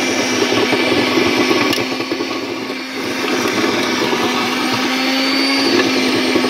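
Ikra Mogatec Flexo FEM 1500 electric tiller running with a steady motor tone while its tines churn through dry soil. The sound drops briefly a couple of seconds in, then picks up again.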